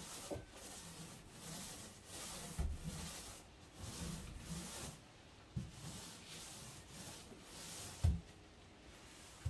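Paint being brushed onto a plywood cabinet in repeated hissing strokes, about one or two a second, with a couple of low knocks, the loudest near the end.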